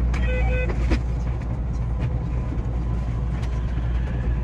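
JR West 227 series 0 electric train running, heard from the front of the train: a steady low rumble with scattered clicks, and a few short high tones in the first second.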